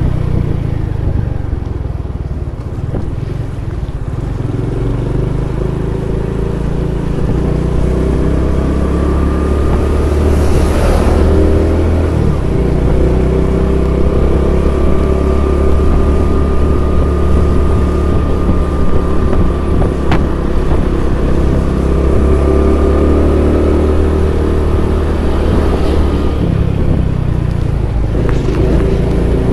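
Honda Pop 110i's small single-cylinder four-stroke engine running while riding, heard from on the bike with wind rushing over the microphone. The engine picks up over the first several seconds, then holds steady.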